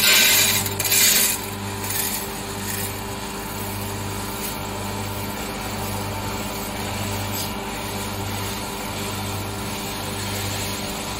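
Dried split yellow lentils pouring from a steel bowl into a steel drum, a loud grainy rush in the first second or so with smaller spills just after, over the steady hum of the machine's electric motor.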